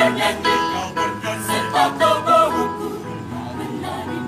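Mixed choir of men's and women's voices singing in parts, with short rhythmic attacks about twice a second.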